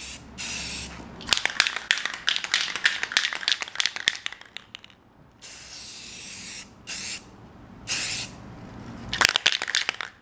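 Aerosol spray paint can hissing in short bursts. In between, a long spell of fast clicking, typical of the can being shaken with its mixing ball rattling inside.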